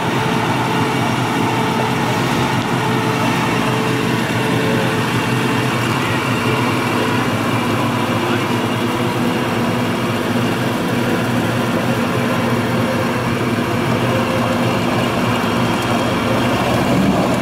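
Classic 1950s Chevrolet engine idling steadily and loudly.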